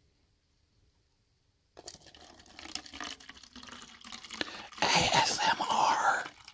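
Nitrogen-infused oat-milk espresso latte poured from a can into a thin plastic cup, the stream splashing and foaming up in the cup. It begins about two seconds in and grows louder for the last second and a half.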